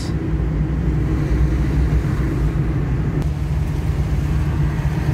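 Steady engine and road noise of a car driving on a wet road, heard from inside the cabin: a continuous low drone.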